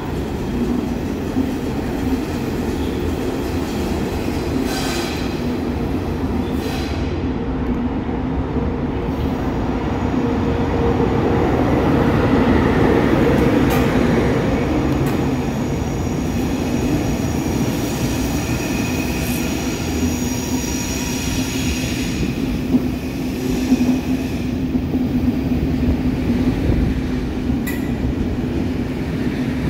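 DB class 111 electric locomotive approaching and running past, hauling passenger coaches. The sound is loudest as the locomotive goes by, then settles into the steady rolling of the coaches. A thin, high wheel squeal comes in for a few seconds midway.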